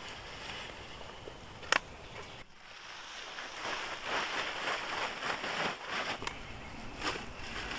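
Crinkly rustling of a large white fabric sack being grabbed and gathered up by hand, with a sharp click a little under two seconds in.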